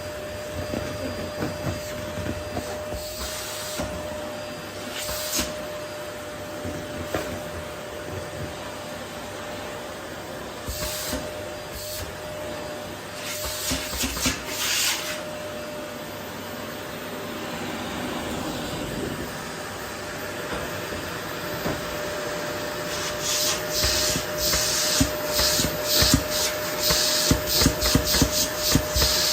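Vacuum cleaner running steadily with a constant whine, its floor nozzle rubbing over a wooden floor and picking up rose petals. Scattered clicks and rattles, thickening into a dense rattling near the end.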